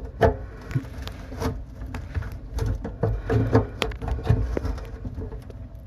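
Hand tools clicking and knocking against the metal fittings under a kitchen sink while trying to loosen the tap's mounting, in irregular sharp taps and clunks.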